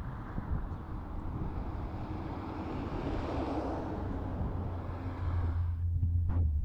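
A car passing on the street: its tyre and engine noise swells to a peak about halfway through and fades away, with wind rumbling on the microphone.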